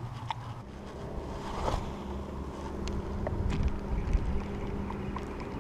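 Wind on the microphone and water around a small aluminium boat, with a low steady hum and a few faint ticks as a spinning reel is worked.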